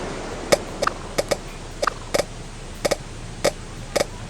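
Soundtrack of the edited project playing back: a steady rushing hiss, like surf, that slowly fades, with short irregular knocks about every half second.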